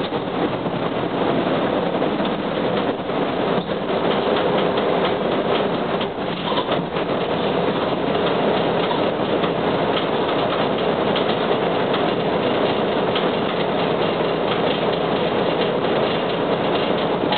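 Interior running noise of a 1998 UD (Nissan Diesel) KC-UA460LSN two-step diesel city bus under way: a steady drone of engine, drivetrain and road noise with a faint steady hum.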